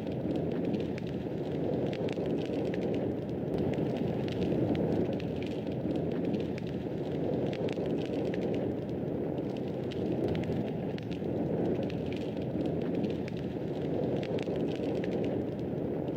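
Wood fire crackling: a steady low rushing under frequent small, irregular snaps and pops.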